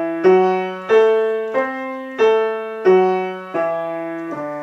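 Grand piano playing the D dominant pentatonic scale as a string of notes over a held bass, one struck about every two-thirds of a second, each ringing and fading before the next. The line climbs and then comes back down.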